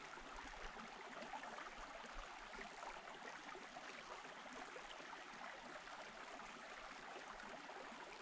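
Faint, steady trickle of a tiny trout creek's flowing water.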